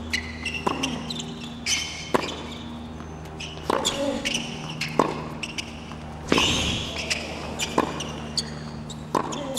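Tennis rally on a hard court: racquet strings striking the ball back and forth, about seven hits roughly every second and a half, with court shoes squeaking between shots.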